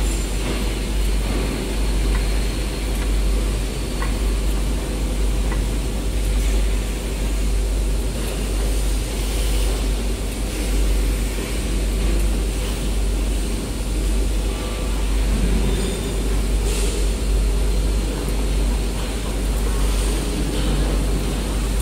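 Steady low rumble and machine hum from an EVERLIFT CQD15K electric reach truck working its mast and forks, then driving off near the end, with a few light clicks.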